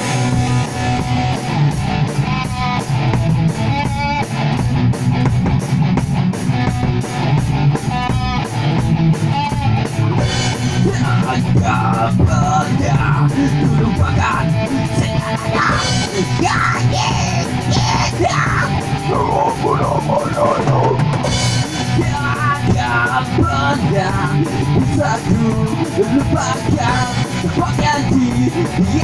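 A rock band playing live: electric guitars and a drum kit, with a fast cymbal beat through the first ten seconds. A singer's voice comes in over the band about ten seconds in.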